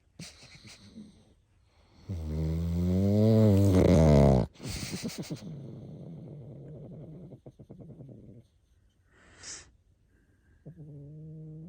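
Snoring: a long, loud snore about two seconds in, its pitch wavering, that cuts off sharply. A quieter fluttering breath follows for a few seconds, then a short puff of breath, and another snore begins near the end.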